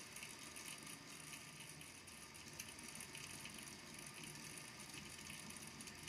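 Faint, rapid, irregular tapping of small balls against the base of a volcano lamp's water tank.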